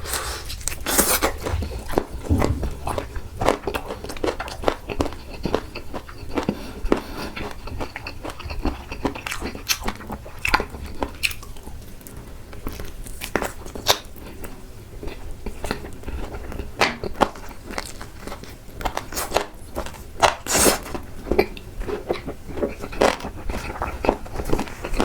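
Close-miked eating: biting and chewing, with frequent sharp crunches and mouth clicks throughout and two louder bites, one about a second in and one near the end.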